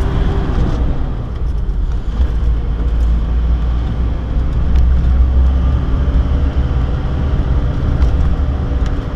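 Ford Ranger 3.0 turbo diesel driving on a wet road, heard from inside the cab: a steady low engine and road rumble with a faint engine hum above it.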